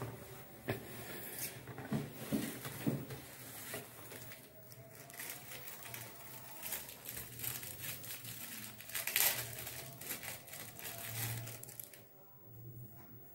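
Packaging rustling and crinkling, with small taps and clicks, as a medal with a red ribbon is unwrapped and handled; the loudest rustle comes about nine seconds in, and it quietens near the end.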